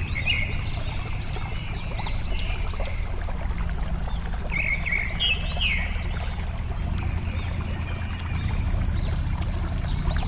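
Water flowing steadily with a low, even rush, while a songbird calls in three short runs of quick, arching whistled notes over it.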